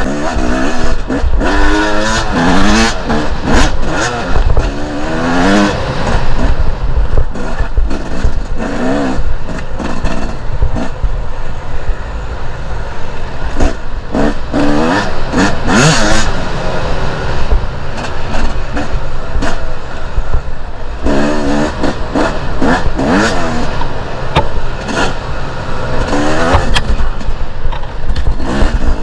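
Two-stroke enduro dirt bike riding off-road, its engine revving up and easing off again and again in rising sweeps. There is rattling and rough noise from the ride throughout.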